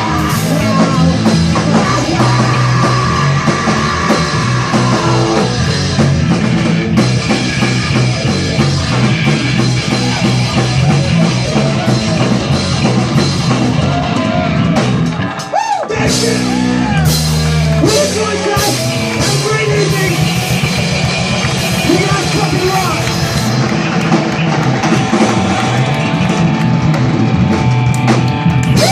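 Rock band playing live, with drum kit and singing. The band drops out briefly about halfway through, then comes back in at full volume.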